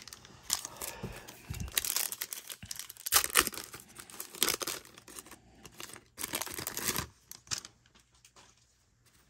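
A baseball card pack's wrapper being torn open and crinkled by hand, in irregular rustling, crackling bursts that stop about two seconds before the end.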